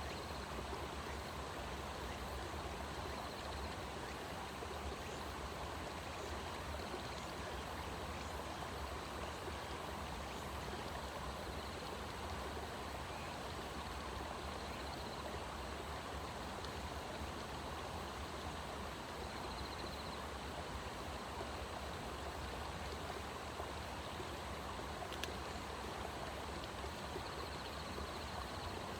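Steady rushing of flowing water, like a stream running. Faint high chirring comes and goes over it, and there is a single light click near the end.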